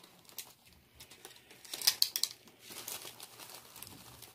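Plastic packaging crinkling and rustling in short irregular spells, loudest about two seconds in, as taco seasoning is handled and measured out.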